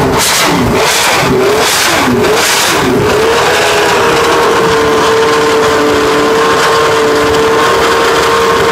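Ford Cosworth DFV 3.0-litre V8 of a historic Lotus Formula 1 car running stationary, blipped four times sharply in the first three seconds with the revs falling back between blips. It then settles and holds a steady engine speed.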